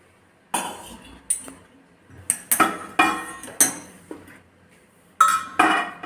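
A metal spoon clinking and scraping against a metal bowl in about eight irregular, ringing strikes as hot ghee and milk are mixed into gram flour.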